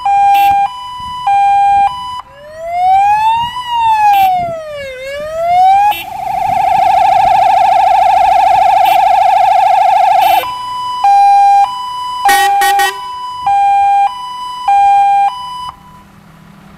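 Fire engine's electronic siren (GES 110 signal generator through two YD 100B loudspeakers) cycling through its tones. It goes from a two-tone hi-lo, to a slow rising-and-falling wail, to a fast warble, then back to the two-tone with a brief cluster of short blasts. It cuts off about a second before the end, leaving a faint low hum.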